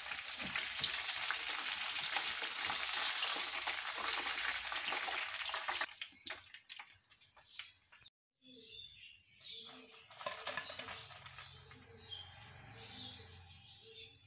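Batter-coated fish fingers deep-frying in hot oil, sizzling and crackling steadily. About six seconds in the sizzle drops away as the fish is lifted out of the oil on a wire skimmer, leaving only faint sounds after a brief silent gap.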